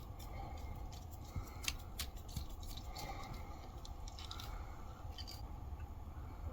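A few sharp clicks and snips of handwork, most of them between about one and a half and two seconds in and again after five seconds, over a low steady rumble.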